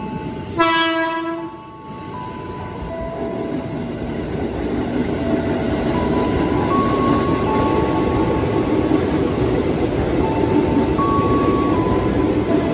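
JR 205 series electric commuter train (ex-Saikyo Line set 205-42F) gives one horn blast of about a second, starting about half a second in. Then it runs past along the platform, the rumble of its wheels and motors growing louder over the next few seconds and staying loud as the cars go by.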